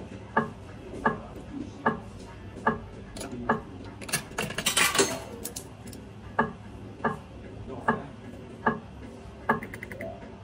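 Bar video slot machine clicking sharply about every 0.8 s as it plays. About four seconds in comes a second-long metallic clatter of a coin going in, which loads one euro of credit.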